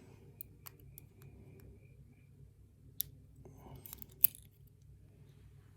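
Small metallic clicks and taps of lock pins and picking tools being handled while a lock cylinder is gutted. Several light ticks come in the first second, a sharper tap about three seconds in, and a short cluster with the loudest tap just past four seconds.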